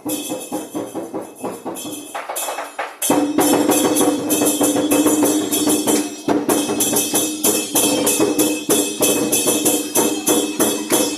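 Chinese lion dance percussion: a drum with clashing cymbals playing a quick, steady beat. It gets louder about three seconds in, when a low ringing tone joins the strikes.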